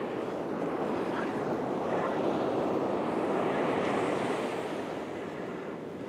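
Ocean surf breaking and washing up the sand, swelling louder in the middle, with wind on the microphone.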